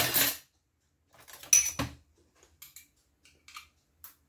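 A jar of white sauce being handled and opened, with two short bursts of clatter in the first two seconds, then a few light clicks of a spoon against the jar as sauce is scooped out.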